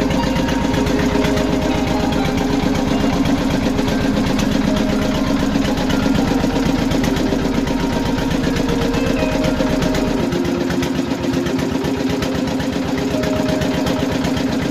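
A small wooden fishing boat's engine running steadily, with an even, rapid beat.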